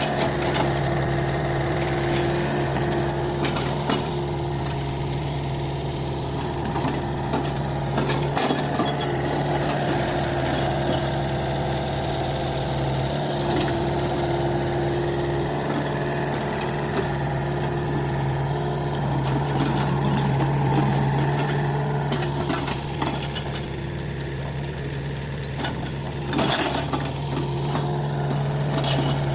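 Kobelco SK 50 P mini excavator's diesel engine running steadily with the throttle pulled fully open, with scattered metallic clinks and knocks from the working machine.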